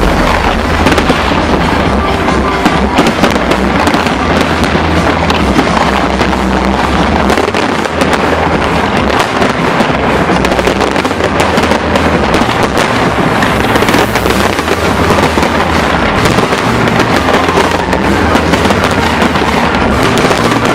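Fireworks display: a dense, continuous crackling and popping of many shells with deeper booms underneath, loud throughout.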